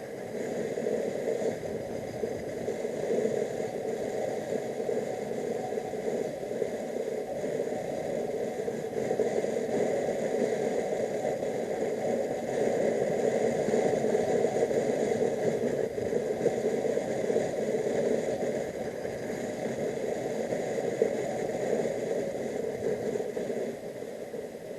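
Motorcycle under way on the road: the engine running steadily under a continuous rush of wind and road noise, growing somewhat louder midway and easing off near the end.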